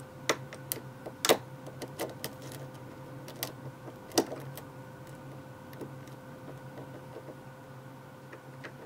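Metal pick and pins clicking inside a five-pin rim cylinder during single-pin picking: scattered sharp clicks, several in the first half and fewer later, over a steady low hum.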